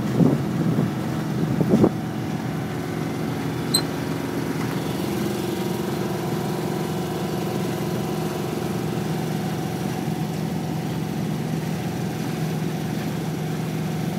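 A sailing yacht's inboard engine running steadily under way, an even low drone. A few knocks and rustles in the first two seconds, and a short high blip about four seconds in.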